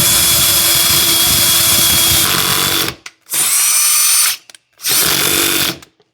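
Electric drill boring into a vintage pool ball: one long run of about three seconds, then two shorter bursts of about a second each.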